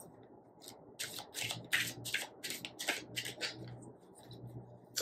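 A deck of tarot cards being shuffled by hand: a quick run of card slaps and swishes, about four a second, starting about a second in and dying away after about three seconds.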